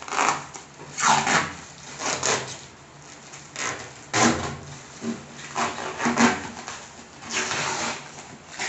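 Blue protective plastic film being pulled and crinkled on a stainless steel gas range cooktop, in a series of irregular short rustling bursts.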